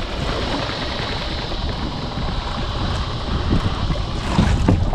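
Small 6 hp outboard motor idling steadily in neutral, with a few thumps near the end.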